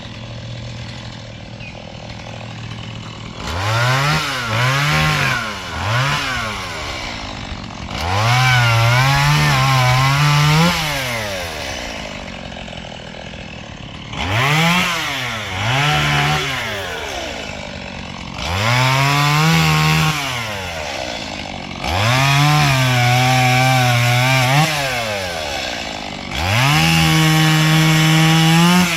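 Stihl MS 170 small two-stroke chainsaw idling, then opened up about six times for two to three seconds each as it cuts through wood, its pitch climbing, holding under load, then dropping back to idle.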